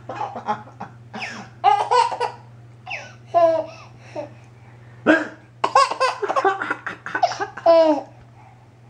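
A baby laughing in bursts of giggles, with a man laughing along. The laughter breaks off for about a second near the middle, then comes back.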